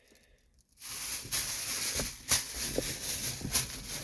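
Plastic bag rustling and crinkling with a few sharp clicks, starting about a second in after a short silent gap.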